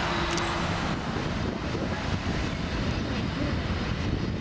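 Jet engines of a Boeing 737-800 (CFM56-7B turbofans) running at high thrust on the runway as the airliner takes off: a steady, continuous jet noise with a strong low rumble.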